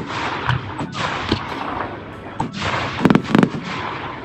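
Fireworks display: repeated bangs and crackling from exploding shells, with a quick run of loud bangs about three seconds in.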